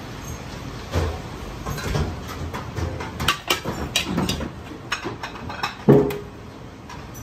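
Metal ladle scraping and clacking against a wok and plate as fried rice is scooped out and piled up: a run of quick knocks, with a loud ringing clank about six seconds in, over a steady background noise.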